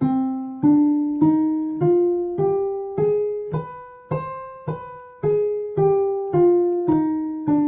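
Piano playing the C harmonic minor scale one note at a time from middle C, with B natural as the raised seventh: it climbs eight notes to the octave, then steps back down, about two notes a second.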